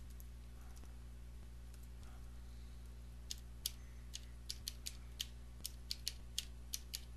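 Typing on a computer keyboard: a string of separate keystrokes starting about three seconds in, over a faint steady low hum.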